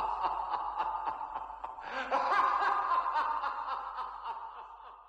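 People laughing in rapid short pulses, swelling again about two seconds in and then fading out to silence.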